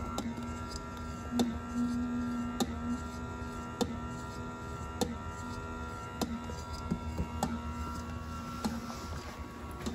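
Electric motor of a vintage Carpenter Mfg. oscillating emergency warning light, running with a steady hum and a sharp click repeating about every second and a quarter.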